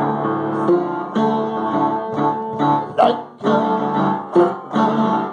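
Guitar music with plucked notes that change every fraction of a second.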